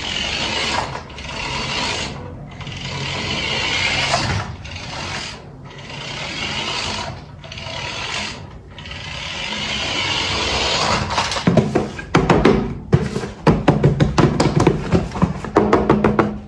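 Rubbing and scraping in a run of strokes, each about a second long with short breaks between. Music with a sharp, clicking percussive beat comes in about eleven seconds in.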